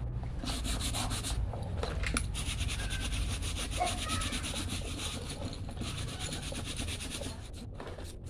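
Scrub brush scrubbing a soapy fabric backpack in rapid back-and-forth strokes.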